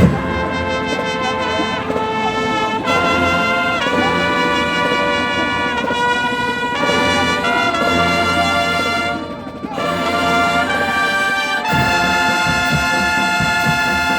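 Marching band brass section playing loud sustained chords, with trombones and trumpets prominent. The music breaks off briefly about nine and a half seconds in and comes back on a new held chord.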